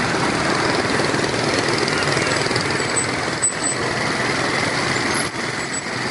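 Dense city motorbike traffic: many small scooter and motorbike engines running and idling close by, with cars passing, a steady rattling din. A brief knock about three and a half seconds in.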